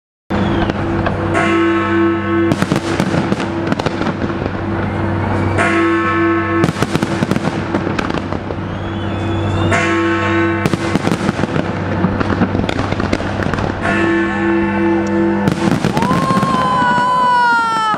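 A big aerial fireworks display: shells bursting in quick succession with dense, continuous bangs and crackling, while music plays along. Near the end a high gliding tone rises briefly, then falls in pitch.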